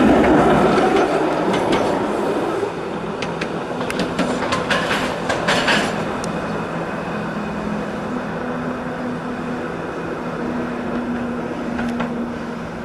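SEPTA Kawasaki streetcar running on street track. A loud rolling noise at first eases after about two and a half seconds to a steady hum, with a run of sharp clicks from the wheels over the rails about four to six seconds in.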